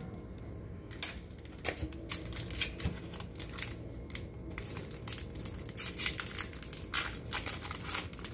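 Foil wrapper of a Pokémon trading-card booster pack crinkling as it is handled and opened, a run of irregular sharp crackles starting about a second in.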